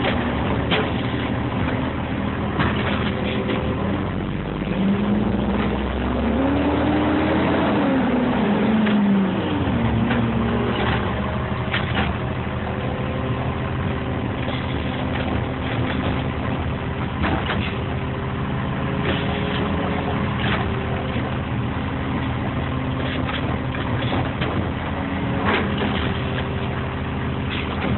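Automated side-loader garbage truck's diesel engine running, its pitch rising and falling once a few seconds in, while the hydraulic grabber arm lifts and dumps carts. Sharp metallic clanks from the arm and carts come through at intervals.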